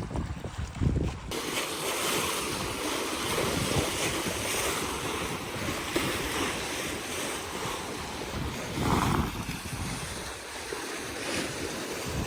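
Wind blowing over the microphone: low gusty rumbles for about the first second, then a steady rushing noise, with a brief louder sound about nine seconds in.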